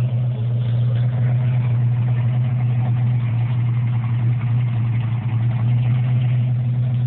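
Ford Mustang's V8 idling steadily, with no revving.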